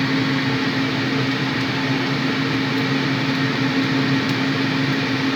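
A fan motor running with a steady hum over an even hiss, with a few faint ticks.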